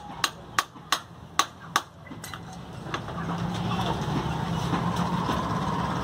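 About seven sharp metallic taps in quick succession over the first two seconds, from a metal hand tool worked against a scooter inner tube. A steady low engine hum then sets in.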